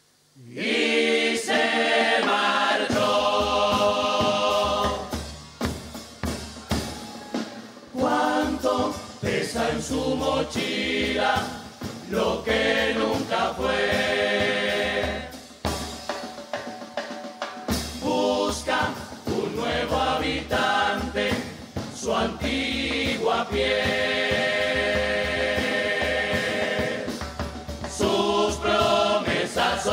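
Murga chorus singing in full harmony, with drum strokes from the bass drum and snare running under the voices. It comes in about half a second in, after a moment of near silence.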